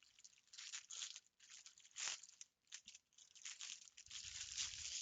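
Soft, uneven crinkling and rustling as a cross-stitch kit's packaging and folded printed Aida fabric are handled and unfolded.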